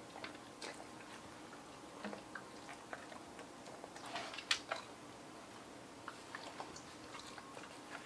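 Siberian husky eating dog cake, picking at and chewing the dried-fruit toppings: faint, irregular mouth clicks and smacks, busier around four to five seconds in.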